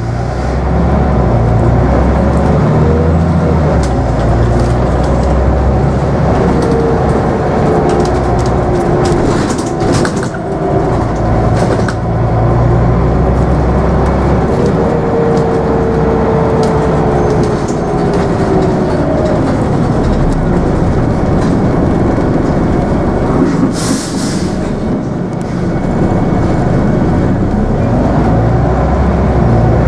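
Scania N94UB Omnidekka double-decker bus under way, heard from the upper deck: its five-cylinder diesel engine drones, its level stepping as it changes gear, with a whine that rises and falls, road noise and body rattles. A short hiss comes about three-quarters of the way through.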